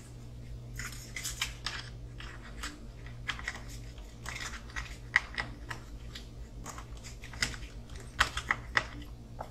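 Small screws being driven into an RC car kit's chassis parts with a hand screwdriver, with irregular clicks, ticks and scrapes from the tool and small parts being handled, over a steady low hum.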